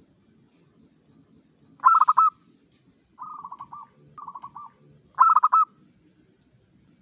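Caged zebra dove (perkutut) cooing in quick trilled phrases. A loud phrase comes about two seconds in, two softer ones follow, and another loud one comes about five seconds in.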